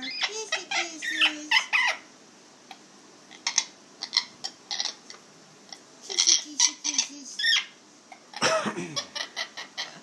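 Amazon parrot chattering in bursts of mumbled, speech-like sounds and clicks, with a brief quiet spell about two seconds in and a falling call near the end.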